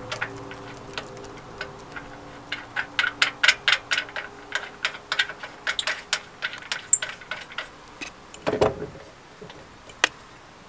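Quick, uneven metallic clicking, several clicks a second, as nuts and bolts are threaded on by hand to fasten a tongue jack's base to a trailer frame, with one louder scuff a little past eight seconds in.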